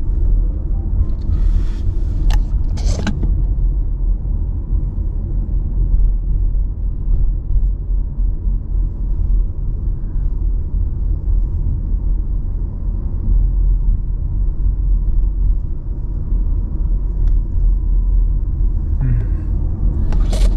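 Steady low rumble of car road and engine noise heard from inside the cabin while driving. A few brief sharp noises come about two to three seconds in.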